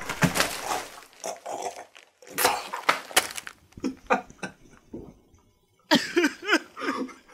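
A person coughing and hacking in short, irregular bursts, ending in a couple of strained, wavering groans near the end.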